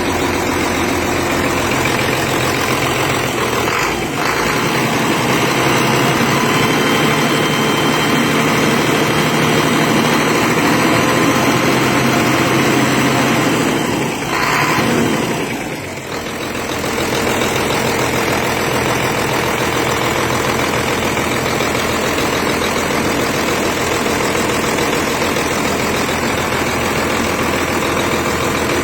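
Freshly rebuilt Cummins C-series 8.3-litre inline-six diesel engine idling steadily. About halfway through, the level briefly rises and then dips before the engine settles back to its steady idle.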